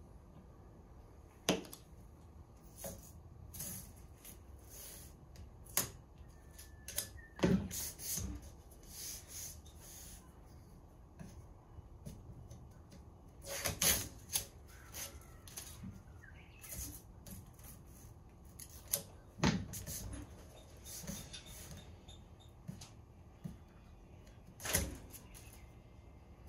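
Hand-work handling noises while regripping a golf club: irregular light clicks, knocks and rustles, with a few louder knocks, over a faint steady hum.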